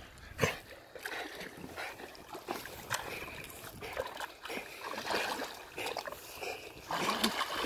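Water splashing and sloshing lightly around a swimming Belgian Malinois, a little louder near the end as it nears the bank.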